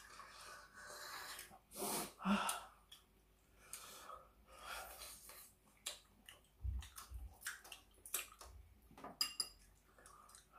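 Eating sounds close to the microphone: a string of short clinks and scrapes of utensils against a dish, with breathing between bites.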